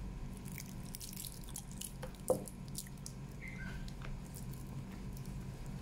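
Small metallic clicks and ticks of a stainless steel watch bracelet and its folding clasp being handled, with one louder click a little over two seconds in.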